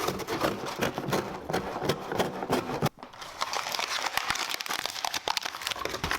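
Crinkling and rustling of packaging being handled, a dense run of irregular crackles with a short pause about three seconds in.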